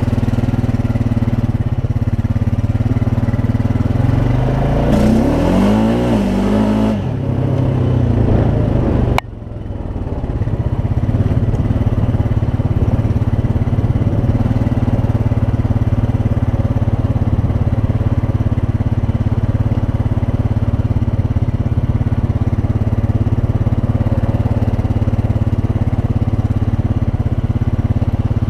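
Honda Rancher ATV's single-cylinder four-stroke engine running under way, revving up and down a few times about four to seven seconds in. About nine seconds in the sound breaks off abruptly, then resumes as a steady engine drone.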